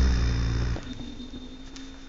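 Dog snoring: one loud, low, rasping snore that stops abruptly under a second in, then a faint steady hum.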